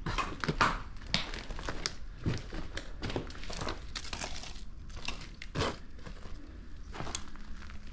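Irregular crinkling and crunching of brittle debris, a dense run of small sharp crackles and clicks.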